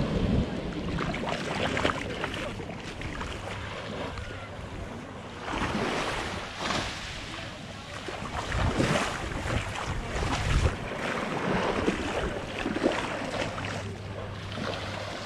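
Vehicle engine running with a steady low hum, under wind rushing across the microphone that swells several times.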